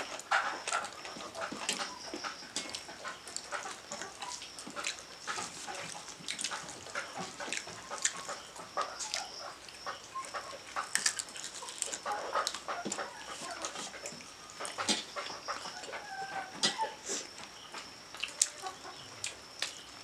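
Eating by hand from steel plates: wet chewing and lip-smacking, with fingers working rice and curry against the metal plates in many short clicks and scrapes. Short animal calls sound now and then behind, over a faint steady high whine.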